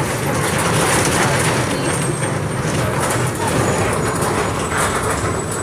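Volkswagen 17.230 EOD bus's diesel engine running steadily, mixed with road and body noise.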